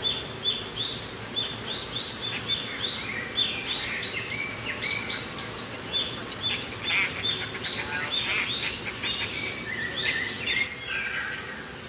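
Birds chirping: a rapid string of short, high calls, several a second, giving way to a few lower calls near the end.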